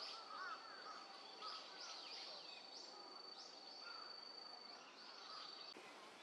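Small birds chirping with many short high calls and some lower warbling notes, over a thin steady high tone that stops about a second before the end.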